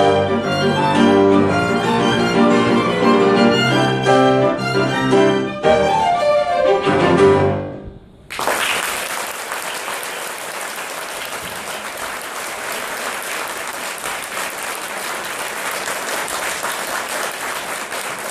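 Two violins with a grand piano play the final bars of a piece, which ends about eight seconds in. Then the audience applauds steadily.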